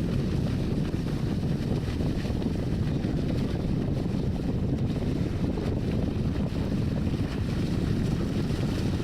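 Steady low rumble of wind buffeting the microphone, mixed with water and motor noise, aboard an inflatable PVC motorboat underway.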